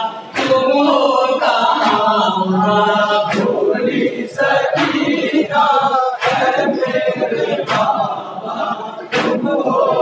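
Men chanting an Urdu noha (lament) in unison into a microphone, unaccompanied by instruments. Sharp slaps, typical of matam, hands striking chests in mourning, come roughly every second or so.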